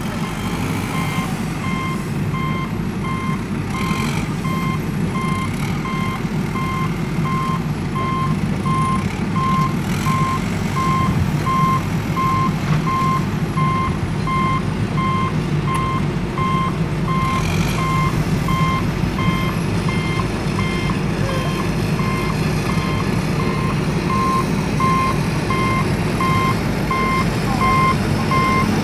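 Truck reversing alarm beeping steadily at one even pitch, over a low engine running.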